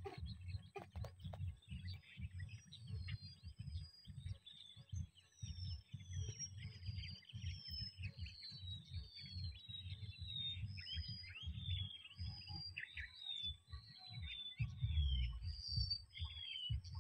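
Birds calling over and over with short chirps that fall in pitch, growing busier from a few seconds in. Underneath, a gusting low rumble of wind on the microphone.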